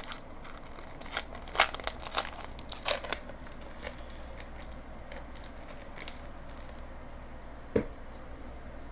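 Shiny plastic wrapper of a Star Wars Evolution trading card pack being torn open and crinkled, with sharp crackles over the first three seconds. Then quieter rustling, and a single sharp click a little before the end.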